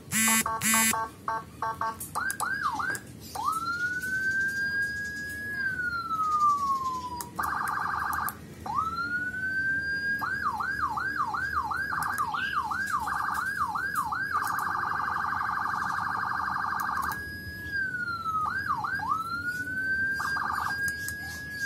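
Whelen electronic siren being cycled through its tones. It opens with a few short blasts, then switches between a fast yelp of quick up-and-down sweeps, a slow wail that rises and then falls, and a harsh steady horn tone that holds for a few seconds at a time.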